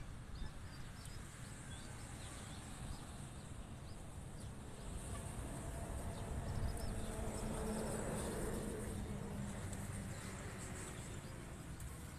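Outdoor ambience of insects buzzing and chirping steadily, with low wind rumble on the microphone and a faint hum that swells in the middle.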